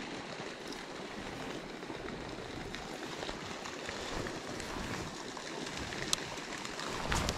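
Steady hiss of outdoor background noise, with a few faint ticks and one sharp click about six seconds in.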